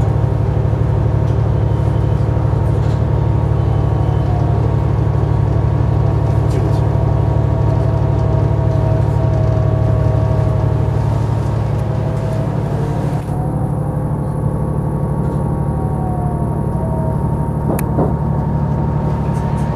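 Inside a JR HB-E300 series hybrid diesel railcar under way: a steady low hum of the engine and running gear with rail rumble, and a thin whine that glides up and down in pitch. About two-thirds through, the high hiss falls away and it runs a little quieter as the train slows into the station, with a single click near the end.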